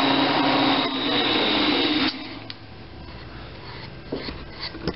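Wood lathe running with the workpiece spinning, a steady whir with a hum, switched off about two seconds in: the noise drops sharply, leaving a faint low rumble and a few light knocks.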